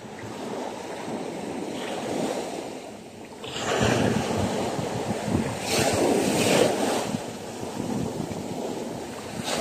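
Rough surf breaking and washing up the beach, with foaming water running over the sand and wind buffeting the microphone. The wash surges louder about three and a half seconds in and again around six seconds.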